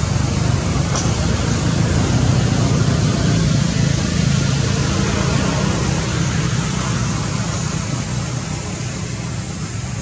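Steady outdoor background noise: a low rumble under an even hiss, easing slightly near the end.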